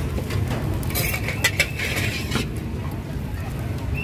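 Metal ladle scraping and clinking against a steel wok, a few sharp clinks and a short scrape about one to two seconds in, over a steady low background rumble.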